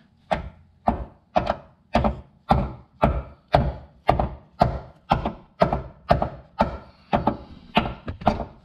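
A hammer tapping a tight-fitting brake-line retaining bracket onto its tab on the strut, about two even blows a second, to drive the bracket home so it holds the line firmly.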